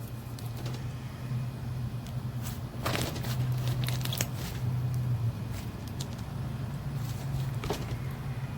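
Hands squishing and working a frothy, buttery slime, giving scattered small crackles and pops, over a steady low hum.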